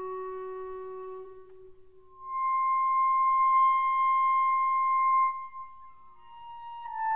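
Music played on a woodwind instrument: a lower held note fades out, then a long, steady high note is held for about three seconds, and a phrase of notes stepping downward begins near the end.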